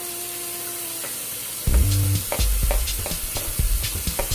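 Wire whisk beating cornbread batter in a plastic bowl, starting about a second and a half in: quick repeated clicks of the whisk against the bowl, about three or four a second, over a wet scraping stir and low thumps.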